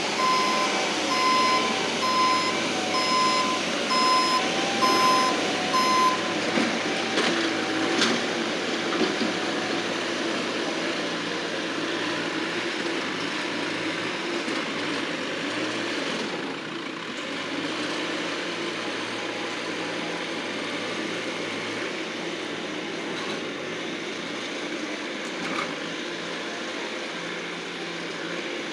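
Bobcat skid-steer loader's engine running steadily, its backup alarm beeping about once a second while it reverses; the beeping stops about six seconds in and the engine runs on.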